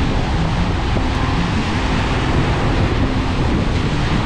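Steady wind noise on the microphone over the wash of sea surf.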